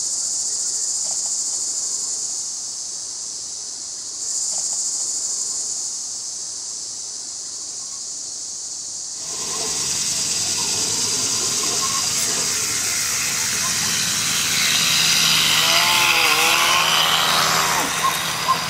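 Steady high insect buzz from crickets or cicadas. After a sudden change about nine seconds in, a G scale garden train pulling a track-cleaning car runs on its rails, its rolling noise growing louder as it nears, with a couple of sharp clicks near the end.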